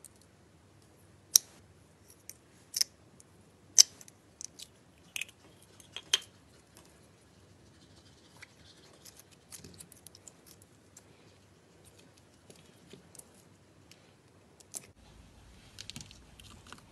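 Clear slime being pressed and stretched by hand, giving sharp clicks and pops. Five loud ones come in the first six seconds, then softer scattered crackling follows, with a small flurry of crackles near the end.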